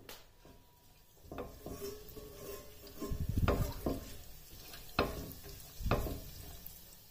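Silicone spatula stirring whole spices in oil in a stainless steel pan: after about a second, a series of about six scraping, knocking strokes against the pan, with the oil sizzling faintly.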